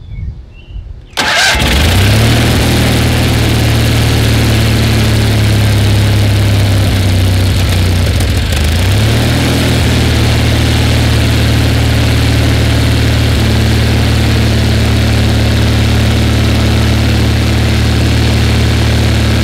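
Kohler Magnum 20 hp twin-cylinder engine catches about a second in and runs on steadily, its speed dipping and picking back up about eight or nine seconds in. The engine has been sucking water, which the owner takes for water in it.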